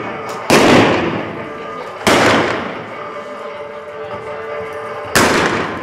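Three single-action revolver shots from blank cartridges fired by a cowboy mounted shooter at balloon targets: the first two about a second and a half apart, the third about three seconds later, each ringing out with the long echo of a large indoor arena.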